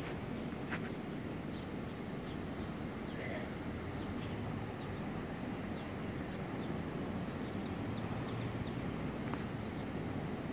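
Steady hum of distant city traffic, with faint short bird chirps scattered through it and a single click near the end.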